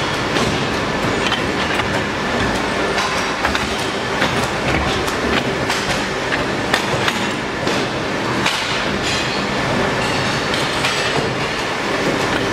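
Two-colour TPR/PVC injection moulding machine running: a loud, steady mechanical din with frequent sharp metallic clicks and clanks from its steel moulds being opened and handled.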